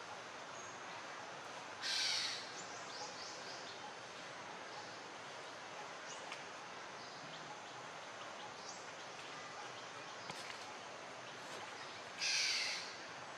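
Forest ambience: a steady background hiss with faint scattered chirps, broken by two short, louder calls, one about two seconds in and one near the end.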